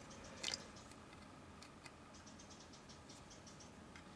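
Faint handling sounds at a multimeter: a short rustle about half a second in, then a run of light clicks, several a second, as the multimeter's selector dial is clicked round to resistance.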